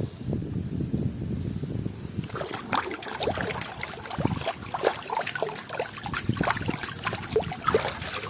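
Water splashing and trickling as a mud-covered toy is washed by hand. A low rumble for the first two seconds gives way to a busy run of small, irregular splashes and drips.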